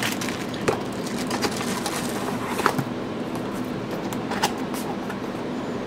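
Packaging being handled: a plastic bag of rope ratchet hangers rustling and crinkling, with scattered small clicks and taps.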